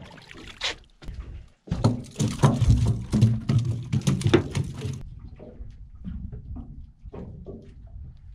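A freshly landed fish flapping and thumping on a boat's deck: a quick run of knocks and rattles. It cuts off at about five seconds, leaving a low rumble with a few light knocks.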